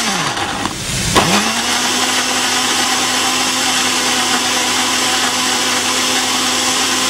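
Countertop blender puréeing tomatoes with no water added. The motor spins down at the start, restarts with a click about a second in, and then runs at a steady pitch.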